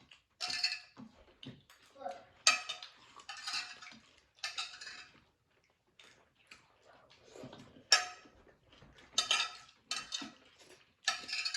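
Spoons clinking and scraping against plates and bowls during a meal, in short separate clatters every second or two.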